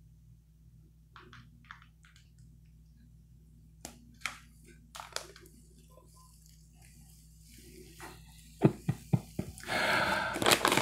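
Plastic bag of Blow Pop lollipops being handled: faint scattered crackles, then a quick run of sharp cracks and loud, continuous crinkling near the end.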